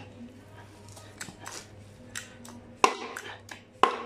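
Steel tools and parts being worked while a bushing is pressed into its seat on a JCB 3CX backhoe loader: a few light metal clicks, then two sharp metal-on-metal strikes about a second apart near the end, each ringing briefly.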